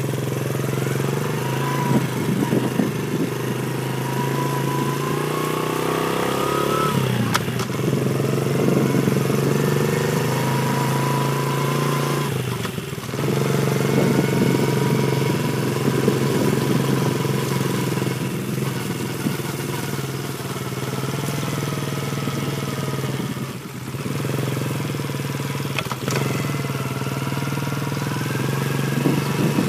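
Dirt bike engine running as it is ridden. Its pitch climbs steadily as the bike picks up speed, then drops back three times as the throttle comes off.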